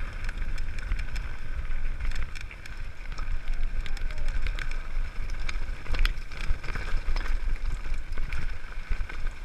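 Mountain bike rolling fast down a loose gravel track, with the rattle and knocks of the bike over stones and a steady rumble of wind on the camera microphone.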